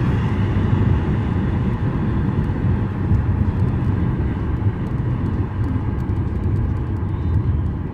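Steady road noise of a moving car, heard from inside the cabin while driving along a highway.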